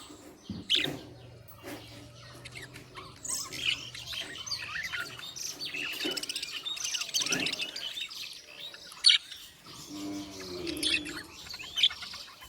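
Budgerigars chirping: a busy run of short, high chirps and clicks.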